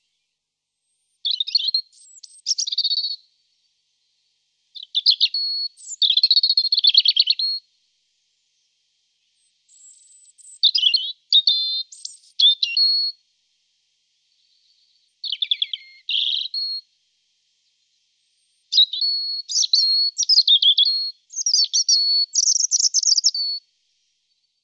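European robin singing: five high, varied phrases separated by pauses of one to two seconds, the last phrase longer than the rest.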